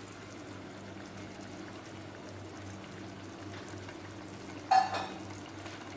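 Boiled prawns tipped from a bowl into a clay pot of simmering masala gravy, with a faint steady bubbling hiss. A brief loud knock about five seconds in.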